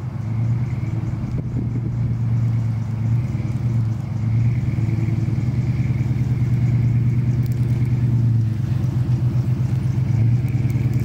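Pickup truck engine running steadily as the truck drives slowly up and pulls in close, getting louder as it draws near.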